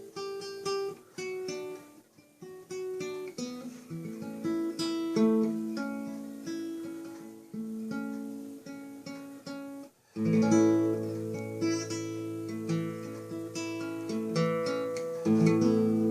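Solo acoustic guitar played fingerstyle: plucked melody notes over lower accompanying notes. About ten seconds in it stops for a moment and comes back fuller, with a deep bass note held beneath the melody.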